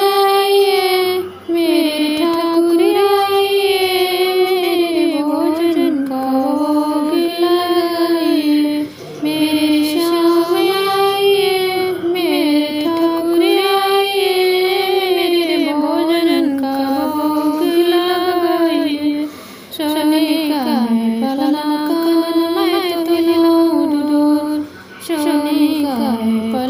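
A woman singing a Hindi devotional bhajan, a bhog bhajan sung when food is offered to Krishna. She sings a slow, gliding melody in long phrases, with four brief breaks between them.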